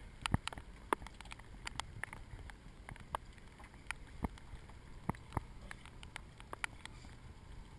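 Irregular sharp ticks, a few a second and uneven in strength, over a low steady rumble of wind and water from a small boat on open water.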